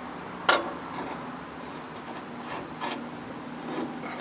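A sharp metallic knock about half a second in, then a few lighter clicks, from hands working the blade-tensioning hardware of a portable bandsaw sawmill while a new blade is fitted that will not come up tight. A faint steady hum runs underneath.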